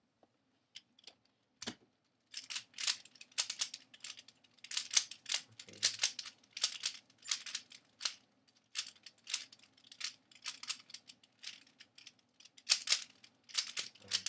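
Dayan Zhanchi 3x3 speedcube being turned fast by hand: irregular runs of sharp plastic clicks and clacks, a few to several a second, starting about two seconds in.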